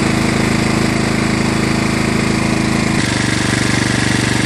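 Kohler Command 12.5 hp single-cylinder engine of a John Deere LA105 lawn tractor running steadily with a fast, even beat. Its tone shifts abruptly about three seconds in.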